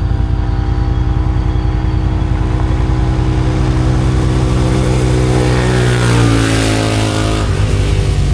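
Side-by-side UTV engine running close by at a steady pace, its pitch shifting as it is revved about five seconds in, then settling back near the end.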